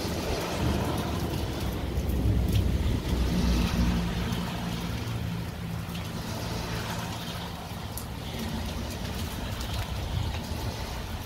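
A pickup truck driving past on a wet road: its engine and tyres hum, strongest a few seconds in, over a steady hiss of rain and running water.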